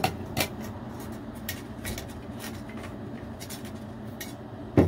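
Scattered light clicks and knocks of teaware being handled on a tea tray, with a sharper knock at the start and another just before the end, over a steady low hum.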